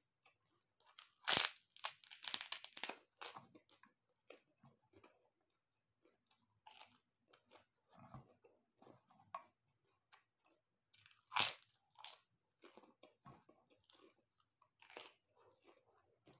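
Close-up crunching and chewing of crisp fried pork rinds and fresh cucumber. A loud crisp bite comes about a second in, followed by rapid crunches for a couple of seconds, then softer chewing, with more loud crunchy bites about eleven and fifteen seconds in.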